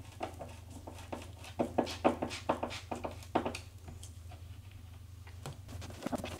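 A hand screwdriver drives a screw through a plastic foot piece into the pre-drilled hole of a wooden display case. It makes a run of short clicks and creaks, most of them in the middle few seconds, over a steady low hum.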